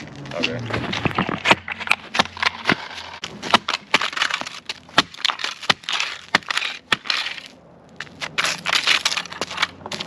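Plastic cracking and crunching, with many sharp snaps, as a toy RC car is smashed apart; it eases off briefly near the end.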